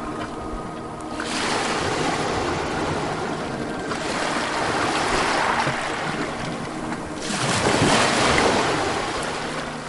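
Ocean waves surging and washing onto a shore. One swell builds about a second in, and a second, louder one peaks around eight seconds in, then recedes.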